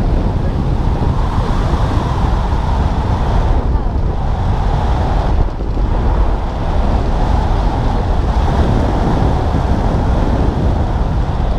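Wind rushing over a wrist-mounted camera's microphone during a tandem parachute descent under an open canopy: a loud, steady roar of airflow that dips briefly a couple of times near the middle.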